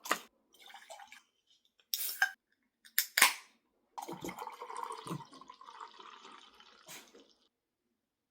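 Hard objects being handled: a few sharp clacks, the loudest about three seconds in, then about three seconds of steady crackling noise.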